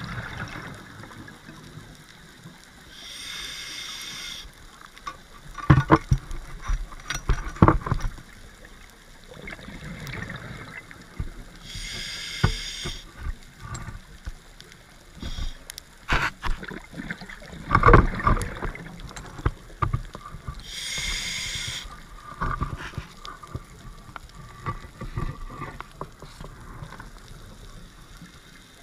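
A scuba diver breathing through a regulator underwater: three short hissing inhalations about nine seconds apart, each followed by a few seconds of bubbling, crackling exhaust bubbles.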